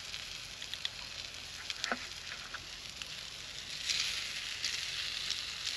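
Fish frying in a cast iron skillet: a steady sizzle that grows a little louder about four seconds in, with a few light clicks from a utensil against the pan.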